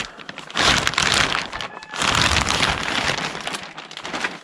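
Packaging rustling and crinkling in two long stretches as a new front bumper lip is unwrapped and handled.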